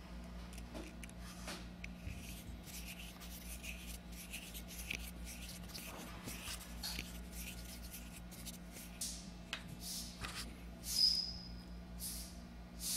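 Small scrapes, clicks and rubbing of metal parts being handled by hand as the cable drum is fastened onto the clutch rod of a Columbia automatic taper head. A brief high squeak comes about eleven seconds in.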